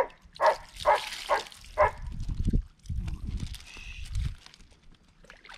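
A dog barking about five times in quick succession, roughly twice a second, followed by a couple of seconds of low, muffled sounds.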